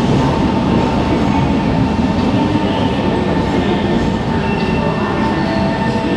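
Singapore MRT train noise at the platform: a steady, loud rumble with a steady hum running through it. A second, higher whine joins about four and a half seconds in.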